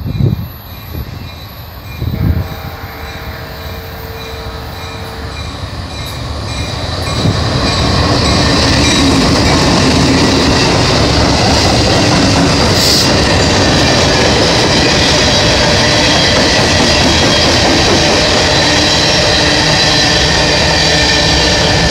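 BNSF diesel freight train approaching, growing louder until its locomotives pass at close range about eight seconds in, then a loud, steady run of steel wheels on rail as the covered hopper cars roll by.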